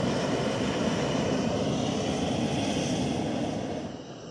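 Hot air balloon's propane burner firing in one long blast, heard close from the basket, tailing off near the end.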